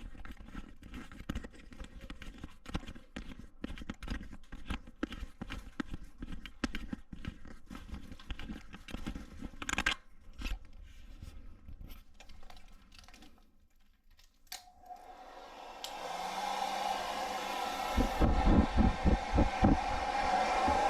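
Handheld hair dryer switching on and blowing steadily, about two-thirds of the way in. Before it, a run of close rustling and knocking handling noises.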